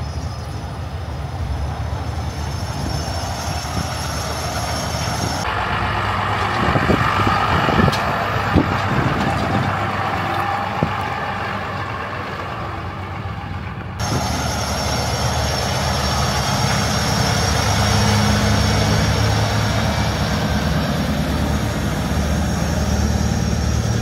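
Low, steady engine noise of semi trucks' diesel engines idling. In the middle, a pickup towing a car trailer goes past, its trailer clanking a few times.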